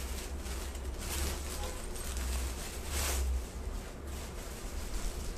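Cloth garments rustling as they are handled, over a low rumble, with louder rustles about a second in and again about three seconds in.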